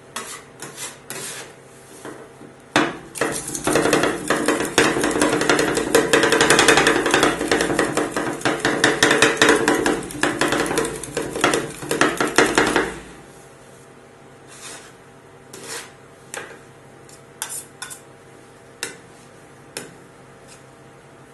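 Two metal scrapers chopping and scraping an ice cream base on a steel rolled-ice-cream cold plate: rapid clacking of blade on steel, loudest and densest from about three seconds in until about thirteen seconds, with scattered taps and scrapes before and after.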